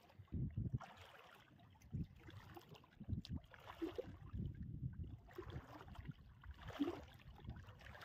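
Shallow seawater sloshing and splashing in soft, irregular bursts, with low knocks, as hands and feet work in the wet sand and water of a tidal flat.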